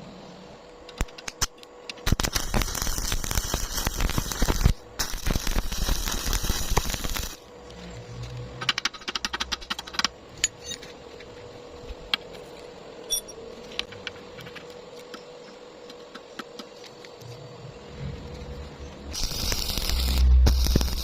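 Electric arc welding crackling in two loud runs, starting about two seconds in and broken briefly just before five seconds, followed by scattered clicks and taps. Near the end a low rumble rises.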